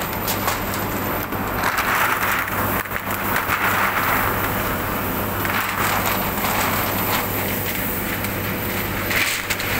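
Factory floor noise: a steady machine hum under a constant din, with rustling and crackling of clear plastic film being handled over slabs.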